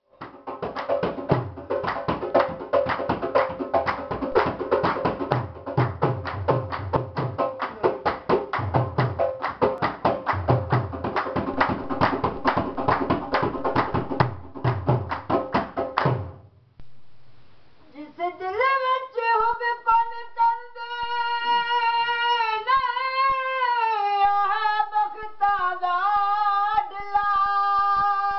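A Punjabi devotional kalam sung by a group to fast, steady hand clapping and dhol drum beats, which stop about two-thirds of the way through. After a short pause a single singer holds long, wavering notes with no accompaniment.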